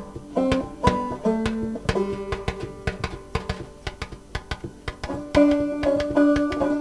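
Instrumental music: plucked-string notes over a quick, even beat of percussive taps, getting louder about five seconds in.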